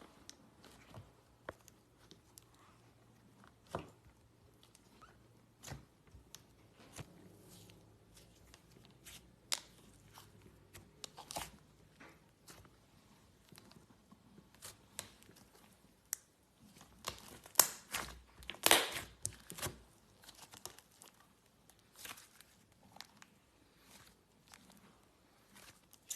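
Slime being worked by hand: scattered small clicks and short crackling bursts, loudest in a cluster about two-thirds of the way through.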